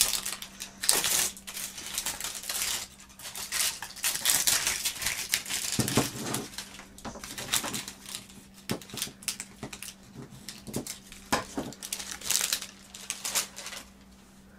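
Plastic wrapping of a Smooshy Mushy blind-box squishy crinkling and rustling in irregular bursts as it is unwrapped by hand, with a few light knocks of the plastic container.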